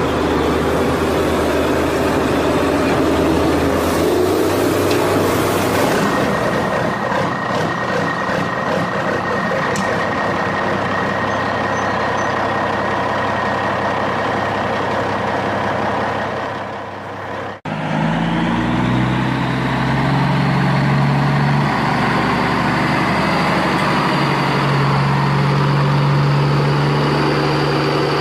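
Dubbed-in truck engine sound effect running steadily. It drops out for a moment about two-thirds of the way through and resumes as a lower engine drone whose pitch shifts in steps.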